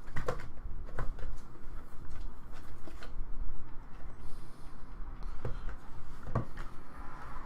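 Trading-card box and packs being handled and opened: scattered clicks and rustling of cardboard and wrappers over a steady low hum.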